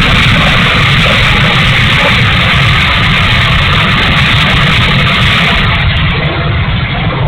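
Twin 64mm electric ducted fans of an E-flite A-10 Thunderbolt II model jet running steadily with a loud, rough rushing noise and a heavy low rumble, easing slightly near the end. This is the motor sound that the owner takes for a bad motor.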